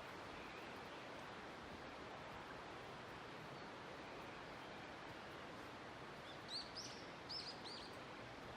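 Steady hiss of outdoor forest ambience, with a small bird giving a few quick, high chirps near the end.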